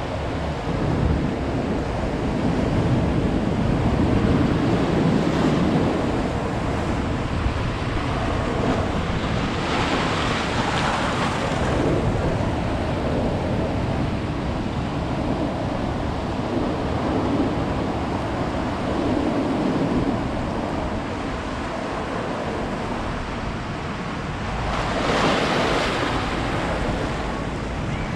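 Ocean surf: waves breaking and washing on a beach, with two louder breaks, one about ten seconds in and one near the end, over a steady low rumble of wind on the microphone.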